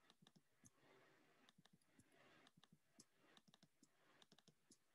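Faint, irregular keystrokes on a computer keyboard: scattered soft clicks of typing.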